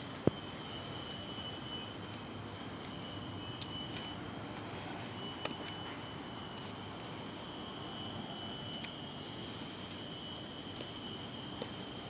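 Forest insects calling in a high-pitched whine that swells and fades about every two seconds.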